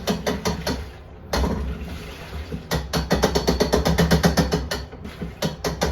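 Hitachi BEAT WASH washing machine running with a loud, rapid clattering knock, about six knocks a second, in spells that stop briefly and start again. This is the machine's abnormal noise, which has been getting worse.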